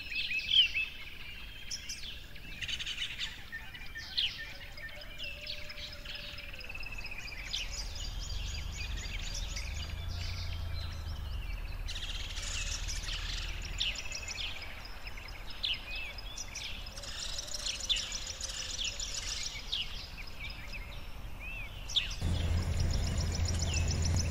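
Several small birds chirping and singing, a busy chorus of short calls and whistles, over a low steady rumble that gets louder near the end.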